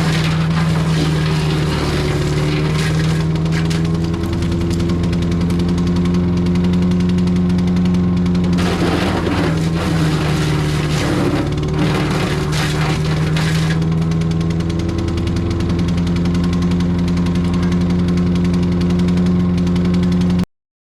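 Gardenbeaut S1 wood chipper shredder running steadily. In the middle there is a stretch of crackling as material is fed through, and the engine pitch sags twice under the load. The sound cuts off abruptly near the end.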